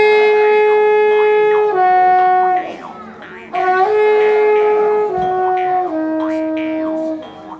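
Reedy wind instruments playing a slow melody live: long held notes that step down in pitch, in two phrases with a short break between them.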